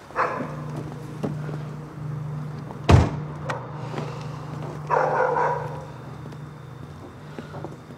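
A dog barking, short bursts near the start and again about five seconds in, over a steady low hum, with one sharp, loud thump about three seconds in.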